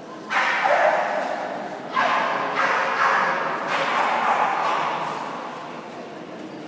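Dogs barking in a large echoing hall: one bark about a third of a second in, then several more from about two to four seconds in, each trailing off in the echo before fading out.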